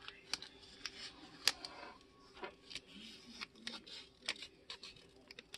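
Blue masking tape being pulled off its roll and wrapped by hand around a ferro rod's handle: faint, irregular crackles and sharp ticks of the tape unsticking, mixed with light handling noise.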